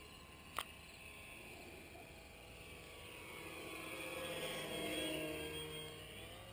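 Motor and propeller of a small depron RC model plane flying past, a whine that swells to its loudest about five seconds in and then fades. A short click about half a second in.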